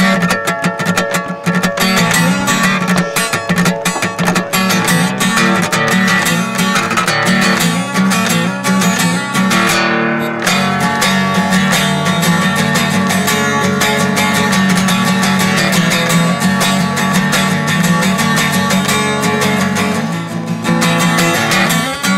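Acoustic guitar being played, a continuous stream of quick picked and strummed notes.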